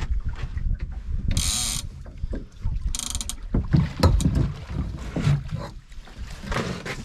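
Wind rumbling on the microphone with knocks and handling noises on a small fishing boat as a fish is played on a rod. Two short, high hissing bursts come about a second and a half in and again at three seconds.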